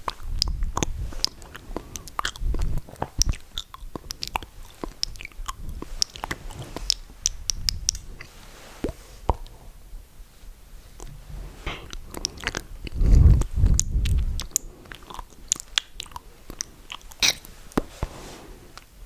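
Close-miked wet mouth sounds: many sharp, irregular lip smacks and tongue clicks. A few low puffs of exhaled breath hit the microphone, the strongest about thirteen seconds in.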